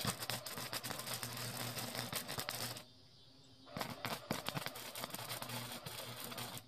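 Flux-core wire-feed welder arc crackling and spitting as steel is welded, in two bursts of about three seconds each with a short pause between them.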